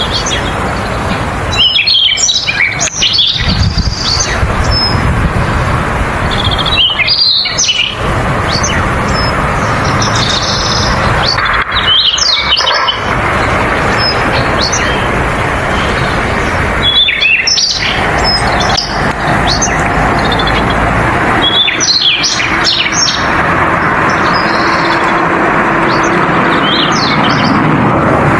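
Spot-throated babbler singing: short runs of quick, varied, sweeping notes, about six phrases a few seconds apart, over a loud steady background hiss.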